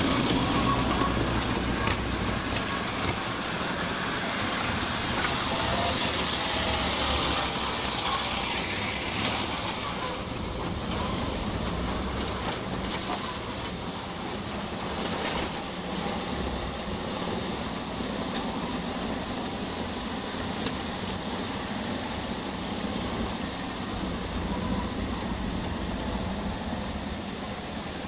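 WWII BMW R75 and Zündapp KS 750 sidecar motorcycles, their 750 cc flat-twin engines running steadily on the move, with a sharp knock about two seconds in.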